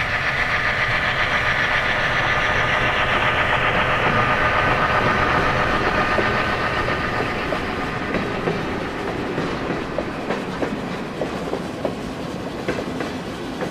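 Diesel freight train passing: the locomotive's engine is loudest over the first few seconds, then the cars roll by with a run of wheel clicks over the rail joints as the sound slowly fades.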